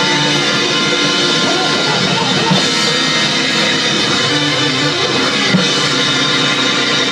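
Hammond-style drawbar organ playing a fast, loud church-music passage, with drums playing along.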